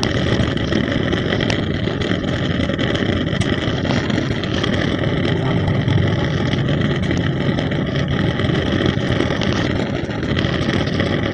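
Lit LPG gas stove burner running with a steady rumbling hiss and a few sharp crackling pops, the crackling sound of a faulty burner, which the fitter traces to a corroded, worn-out burner part.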